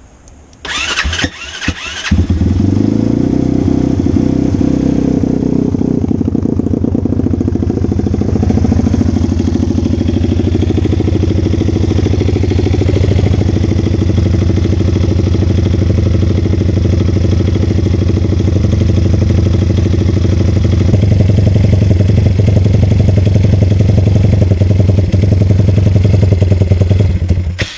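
Orion RXB150L motorcycle engine started: a brief burst of cranking about a second in, then it catches and idles steadily until it is shut off near the end. It is being run for a minute after a fresh oil change to circulate the new oil before the oil level is checked.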